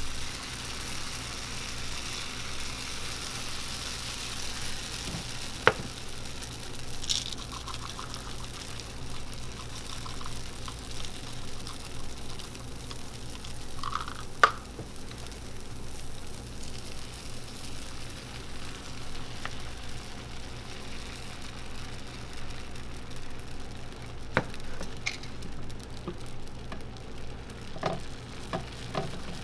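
Egg waffle batter sizzling in a hot cast-iron Hong Kong egg waffle iron, a steady hiss over a low steady hum. A few sharp clicks break through, the loudest about six seconds in and about halfway through.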